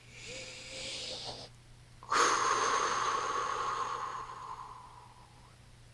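Two breath sounds: a short one, then about half a second later a louder, longer one with a thin whistling tone that slowly falls in pitch before fading.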